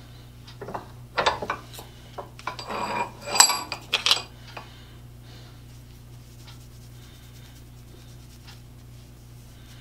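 Small metal parts and a tin being handled and set down on a workbench: a run of clinks and knocks over about four seconds, the loudest a single sharp clank, after which only a steady low hum remains.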